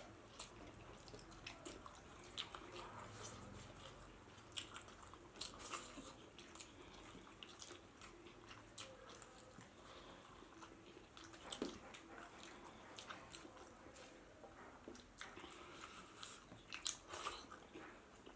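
Close-miked chewing and biting of a person eating pork biryani with rice: soft, scattered wet mouth clicks, with a couple of louder ones near the middle and near the end.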